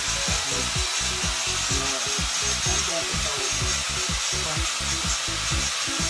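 Low, uneven rumbling and rustling noise on the microphone, with no steady rhythm.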